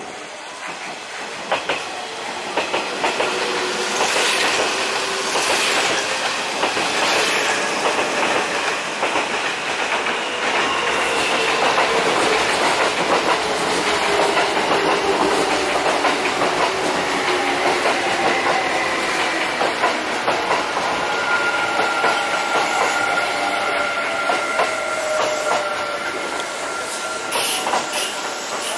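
Kintetsu electric trains running into the station, their wheels clicking over rail joints and points. A whine falls slowly in pitch as they slow, and a thin steady high squeal sounds in the last several seconds.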